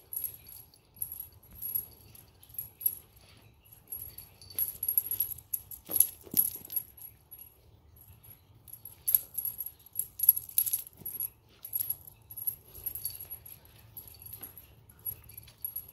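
A small jingle bell jingling in short, irregular shakes as a cat plays with a waved feather wand toy, with a louder rustling knock about six seconds in.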